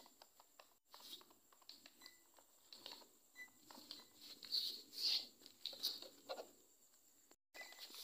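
Faint irregular clicking and scratching from a small homemade cardboard RC pickup truck's wheels and electric motor as it drives over a rough floor, with a few louder short rasps about halfway through.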